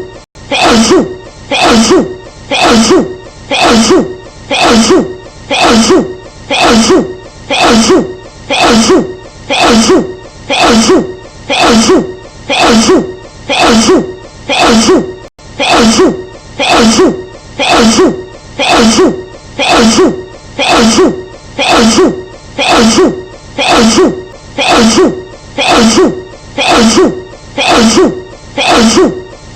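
A woman's sneeze, the same short sneeze clip looped over and over with no gap. It repeats evenly a little more than once a second.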